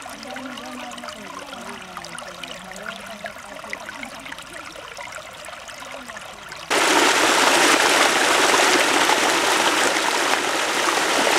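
Shallow stream gurgling and trickling around rocks. About two-thirds of the way in it changes abruptly to a much louder, steady rush of water pouring down a small rocky cascade.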